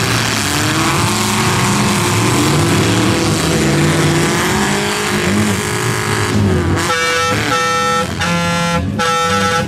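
Demolition derby cars' engines revving, rising and falling in pitch. About seven seconds in, a vehicle horn begins sounding in several short repeated blasts.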